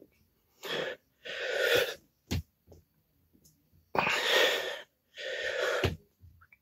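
Hard, noisy breathing of a man straining through slow push-ups: two rounds of a pair of loud breaths, each round ending in a short thud.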